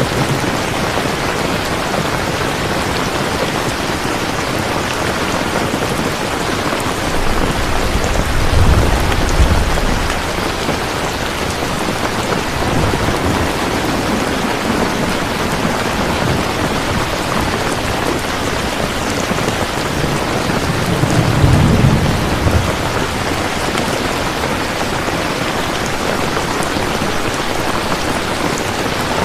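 Steady rain falling, with two low rolls of thunder, one about a third of the way in and another about three-quarters through.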